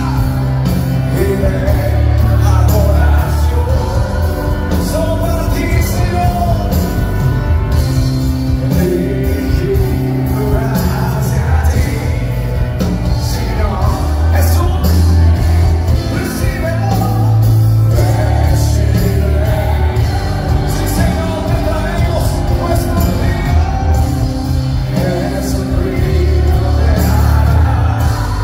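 Live Christian worship music: a male lead singer with a full band, strong bass throughout.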